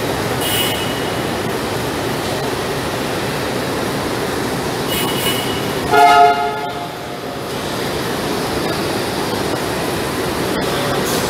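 Steady din of a busy railway station, with one short train horn blast about six seconds in, the loudest sound. Two brief faint high tones come before it.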